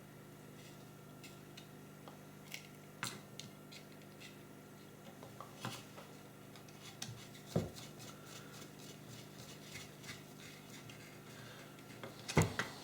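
Scattered small clicks and taps of tools, screws and wires being handled while a light dimmer's screw terminals are wired, with a sharper click about 7.5 s in and another near the end, over a steady low hum.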